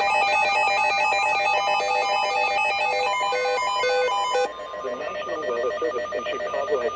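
Electronic emergency-alert tones: a fast, beeping pattern of pure tones stepping between pitches. About four and a half seconds in it drops in level, and a repeating beep continues under a voice that begins reading the warning.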